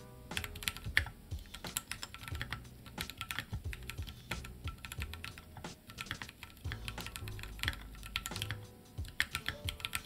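Continuous typing on a Keychron Q1 mechanical keyboard with an aluminium case, linear switches and dye-sub PBT keycaps: a fast, irregular run of keystroke clacks, pretty loud for a keyboard.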